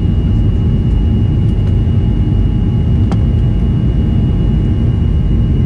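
Boeing 737-300's CFM56-3 turbofan engines running during the climb after takeoff, heard from inside the cabin over the wing: a steady deep rumble with a thin, steady high whine above it. One faint click about three seconds in.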